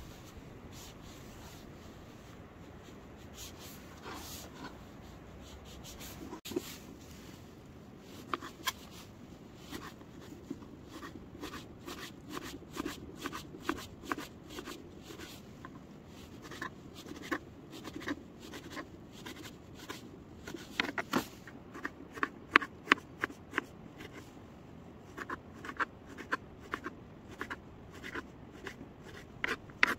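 Knife chopping onions, tomatoes and chillies: a run of quick, irregular taps that begins a few seconds in and comes faster and louder in the second half.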